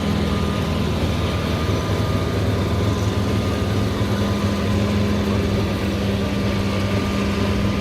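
Concrete truck's heavy engine running steadily at a constant speed, with a faint steady higher whine over the low hum.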